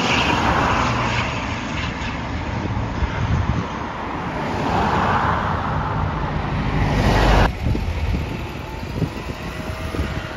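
Road traffic passing close by: cars driving past with tyre and engine noise that swells twice, loudest around seven seconds in, then drops off sharply. The rest is quieter, with wind buffeting the microphone.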